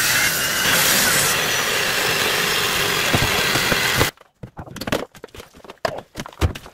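Diamond-blade saw cutting through stucco, a steady loud grinding whine that stops suddenly about four seconds in. After it come a few scattered sharp knocks.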